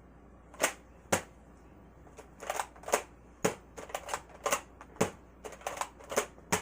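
Series of sharp plastic clicks and clacks, about a dozen at irregular spacing, from handling a Nerf Fortnite SP-L dart blaster and its foam darts.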